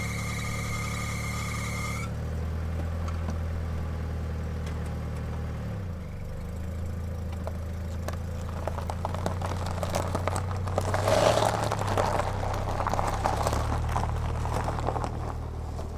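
Mazda S90 engine idling steadily, with a high whine that stops about two seconds in. From about halfway through, a clattering rattle sits over the idle.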